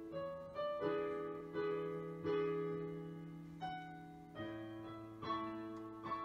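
Background piano music: slow, gentle chords and single notes, each struck and left to fade before the next.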